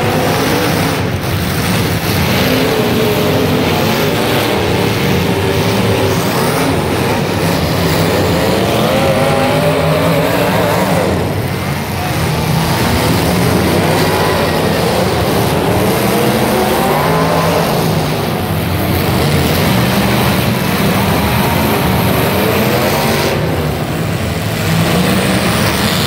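Several demolition derby cars' engines running and revving at once, their pitches rising and falling over and over as the cars accelerate and back up across the dirt.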